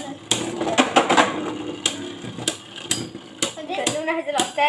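Two Beyblade spinning tops whirring in a plastic stadium, clacking sharply again and again as they strike each other and the stadium wall.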